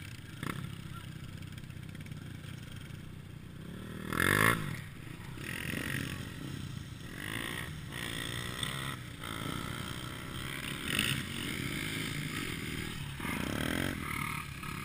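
Dirt bike engine idling, blipped briefly to a rev about four seconds in, with a smaller rise in revs near the end.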